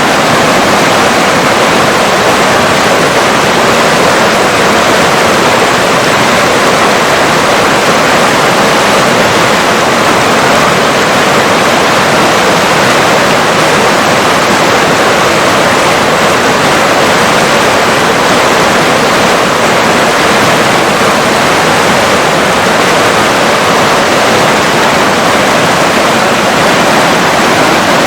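River water rushing, a loud, even, unbroken rush that holds steady throughout.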